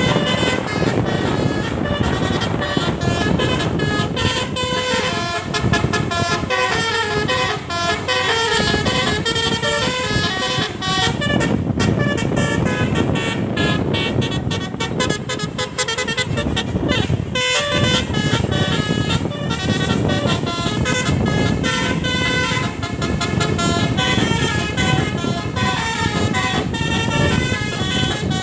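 Tour bus's musical 'telolet' air horn, a set of trumpet horns sounding several notes together, playing a Minang tune as a quick run of changing notes, over a steady low rumble.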